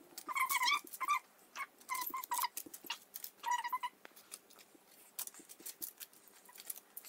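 A small animal's short, high-pitched squeaky calls, repeated a dozen or so times at uneven intervals.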